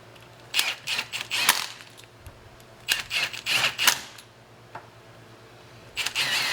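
Steel parts clicking and clinking in three short bursts of rapid rattling, over a steady low machine hum.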